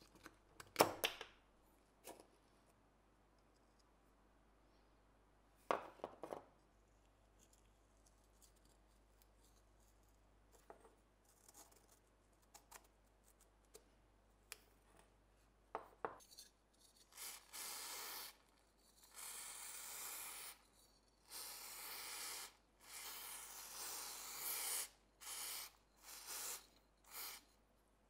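A few sharp clicks and knocks of small parts being handled, then from about halfway on, a run of irregular rubbing or scraping strokes, each a second or two long, like a part being sanded or brushed by hand.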